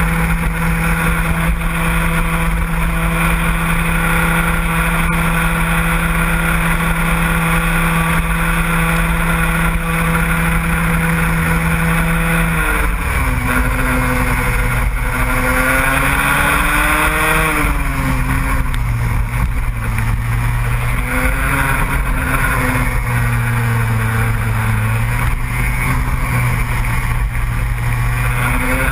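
A vehicle engine running at a steady high pitch for about twelve seconds. About thirteen seconds in its pitch drops, and it then rises and falls with the throttle.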